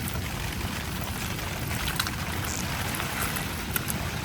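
Steady heavy rain falling on a tent, a constant hiss with a low rumble and a few scattered light ticks.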